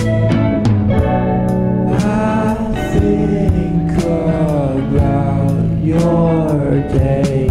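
Background song: plucked guitar with a sung melody, whose notes slide and waver through the middle of the stretch.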